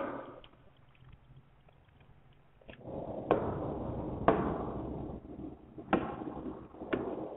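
Sharp, short taps of a pen on an interactive whiteboard's touchscreen: a click at the start, then four taps about a second apart from about three seconds in, over faint room hiss.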